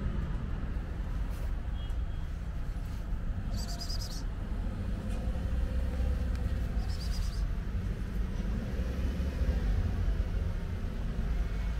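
Outdoor street background: a steady low rumble, with a couple of short high bird chirps about four and seven seconds in.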